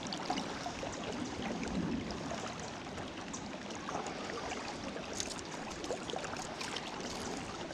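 River current rippling and flowing steadily, an even rush of moving water.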